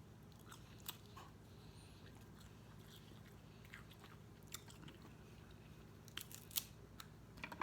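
Quiet eating sounds close to the microphone: chewing, with a few sharp mouth clicks or crunches scattered through and several in quick succession near the end.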